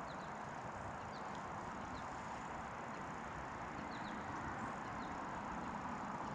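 Steady outdoor hiss of river and wind ambience, with about a dozen faint, short, high chirps of small birds scattered irregularly through it.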